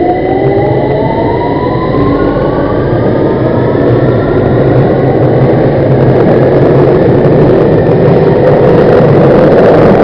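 Underground train accelerating: the electric motor whine rises steadily in pitch over a dense rumble of wheels on rail, growing a little louder toward the end.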